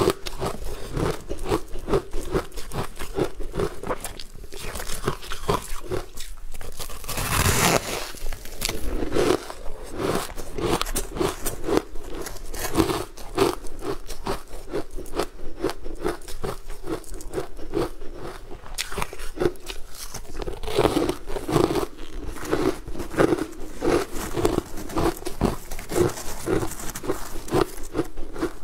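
Close-miked biting and chewing of frozen chunks coated in green powder: a continuous run of rapid, crisp crunches with a steady chewing rhythm, and one louder crunch a little past a quarter of the way in.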